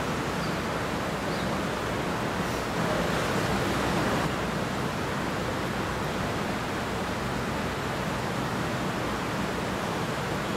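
Steady, even hiss of room and recording noise, with no voice.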